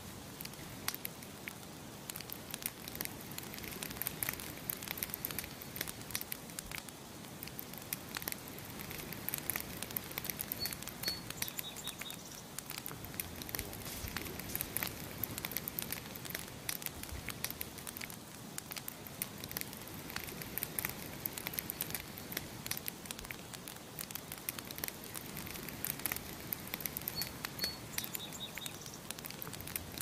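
Campfire of burning wood crackling steadily, with frequent sharp pops and snaps over a soft hiss. A bird chirps briefly twice, about ten seconds in and again near the end.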